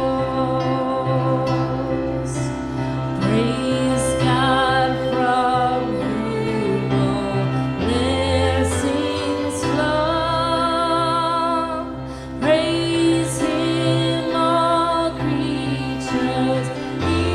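Live worship music: a singer holds long, wordless notes with vibrato over steady sustained instrumental chords.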